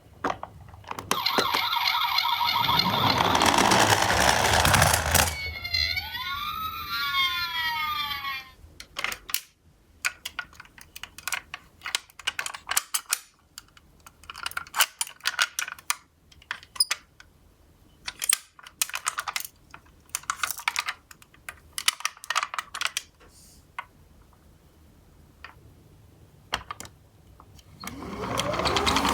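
A loud edited sound effect, then a siren wailing in falling and rising glides for a few seconds. After that, die-cast toy ambulance minicars click and rattle down a slope in repeated short bursts, and another loud rising sound comes in near the end.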